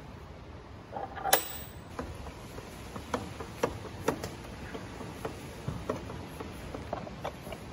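Restored antique wooden lifting jack being worked: its iron ratchet gives one loud ringing metal clack about a second in, then a string of lighter clicks, roughly one or two a second, as the toothed rack is raised.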